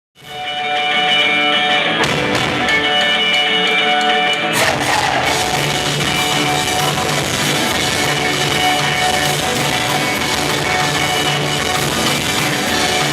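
Rock music: ringing guitar chords fade in from silence, and about four and a half seconds in the full band with drums and bass comes in.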